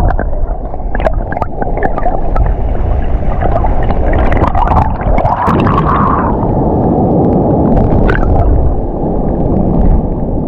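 Sea water rushing and gurgling, loud and muffled, with a few short knocks scattered through it.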